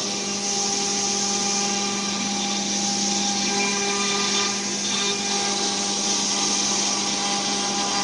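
CNC wood router spindle running at a steady speed: a constant whine with higher overtones over a hiss.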